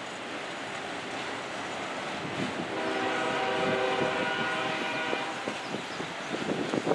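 Freight train rolling past with a steady rushing noise and wind on the microphone. About two and a half seconds in, a locomotive horn sounds one long chord of several tones for roughly two and a half seconds.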